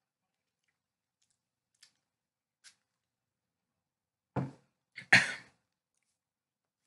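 Near silence with a couple of faint clicks, then about four seconds in two short throaty vocal noises from a man reacting to a sour candy spray, the second louder and breathier.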